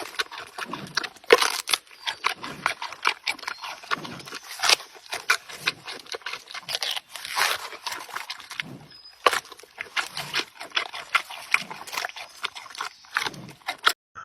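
An animal making a dense run of short, irregular clicking and grunt-like sounds, several a second.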